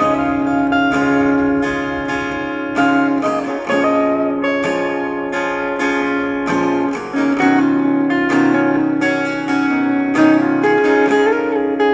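Instrumental break of a pop ballad: plucked and strummed acoustic guitar over a held accompaniment, with no singing.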